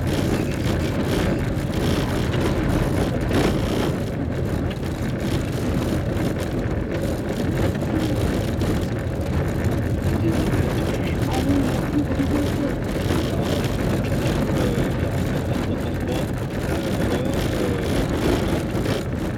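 Car driving on a rough gravel road, heard from inside the cabin: a steady engine drone mixed with rumble from the tyres on the loose surface.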